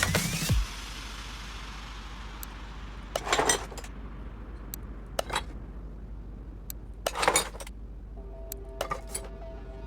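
Electronic music cuts off just after the start, leaving a low steady hum. Scattered light clinks and two short rattles follow, and plucked guitar notes begin near the end.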